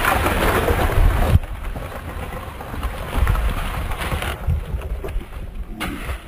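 Wind rumbling on the phone's microphone, loud for the first second or so, then dropping suddenly to a quieter rumble.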